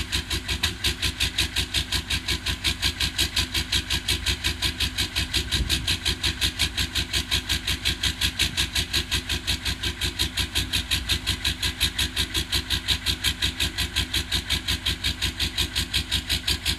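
GM 6.5-litre Detroit Diesel V8 idling in deep cold with an uneven, rhythmic chuffing lope, choochin' like a train. It is running on only six of its eight cylinders: two have dead glow plugs and are not firing.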